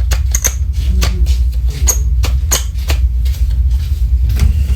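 Handling noise from a plastic carbon monoxide alarm and its packaging: a rapid, irregular series of small clicks and rustles over a steady low rumble.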